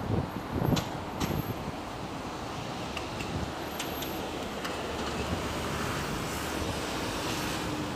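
Steady road traffic noise from cars, buses and trucks on a busy multi-lane road below, with some wind on the microphone.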